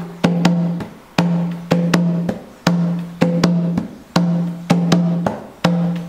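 Atabaque, a rope-tuned hand drum, played alone with bare hands in the capoeira angola rhythm called toque 1: a steady repeating pattern of sharp strokes, some of them left to ring with a deep tone, the pattern coming round about every one and a half seconds.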